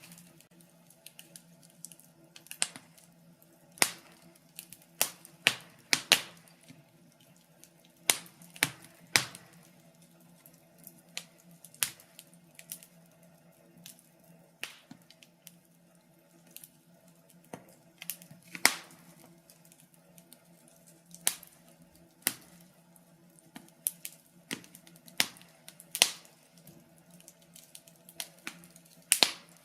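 Wood fire crackling in a fireplace: irregular sharp pops and snaps, a few of them louder, over a soft steady background.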